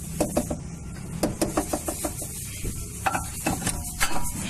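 Irregular sharp metallic clicks and clinks, loudest about four seconds in, some with a brief ringing tone, as the Swift's front drive axle is worked back into the gearbox and hub by hand.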